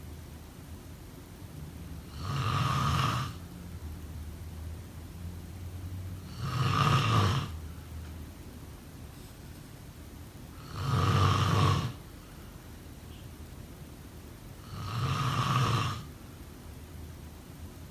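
A person snoring in sleep: four snores, each about a second long, coming about every four seconds in a steady rhythm.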